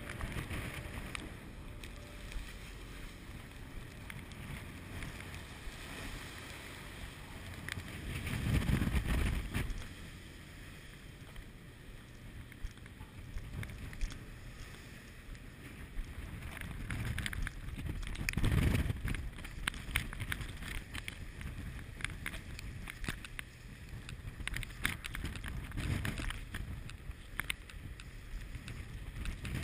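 Strong wind buffeting the microphone over a rough sea, with two heavy low gusts about nine and nineteen seconds in and many small scattered ticks.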